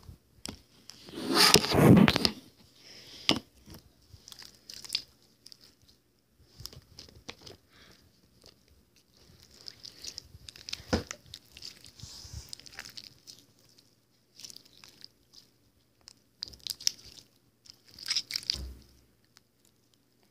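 Slime being squished and stretched by hand, with irregular wet crackling and popping. The loudest burst comes about two seconds in, and smaller ones follow later.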